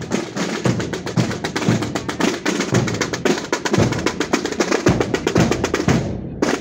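A marching drum band of many side drums played with sticks, a dense, fast run of strokes with deeper drum beats among them.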